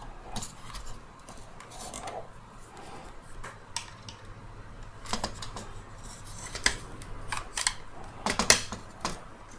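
Small, sharp clicks and scrapes of a screwdriver and then pliers working against the plastic housing of a Dyson V10 vacuum handle, prying and gripping a plastic part to free it. The clicks are sparse at first and come thicker and louder in the second half.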